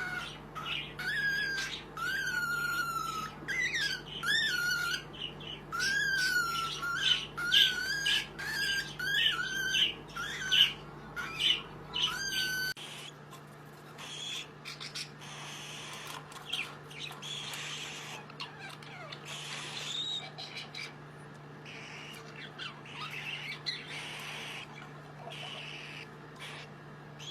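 Baby cockatiel calling over and over in short, wavering squawky chirps. About halfway through the calls turn quieter and softer.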